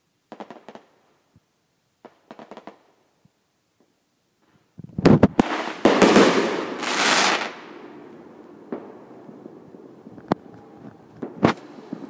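Fireworks going off: two short runs of rapid crackling pops, then about five seconds in a loud bang followed by a long hiss of about two seconds, and a few single sharp pops near the end.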